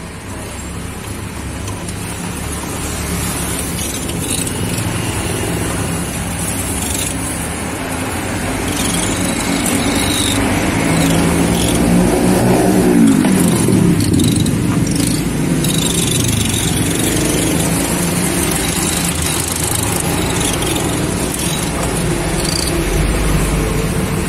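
Road traffic going by, steady, swelling loudest as one vehicle passes about twelve to fourteen seconds in.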